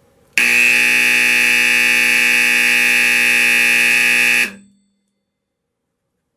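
National Time 411F flush-mount AC fire alarm horn sounding one loud, steady buzzing blast for about four seconds. It starts abruptly and cuts off sharply.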